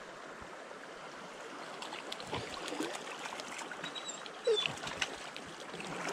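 Shallow creek water running steadily, with splashing and a few short clicks from about two seconds in as a hooked trout is played at the surface.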